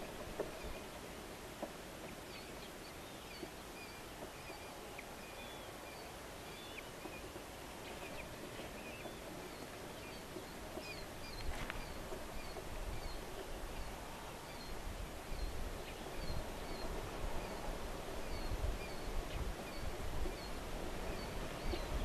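Outdoor ambience with small birds chirping, short high notes repeated every second or so. Low rumbling bumps on the microphone start about halfway through and grow louder.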